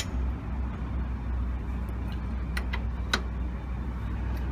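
Metallic clicks of a spanner on the tight nut of a VW T4 track rod end ball joint as it is turned a little at a time: one sharp click at the start, then a few lighter clicks between two and three seconds in, over a steady low hum.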